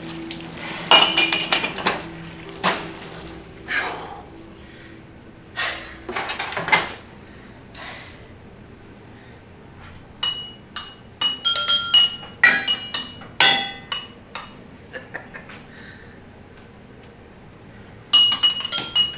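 A series of irregular sharp clinks, each with a short high ring like struck glass or metal. They come singly in the first half, fall into a dense cluster from about ten to fifteen seconds in, and start again near the end.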